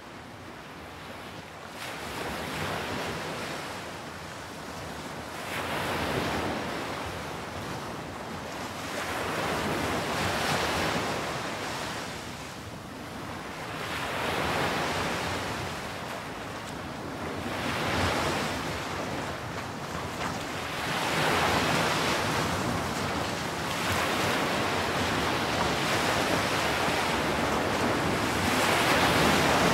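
Sea waves washing ashore, each one swelling and falling away about every four seconds, turning steadier and louder near the end.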